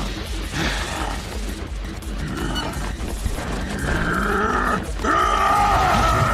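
Anime fight-scene soundtrack: tense background music mixed with sound effects, growing louder and more strained in the last two seconds.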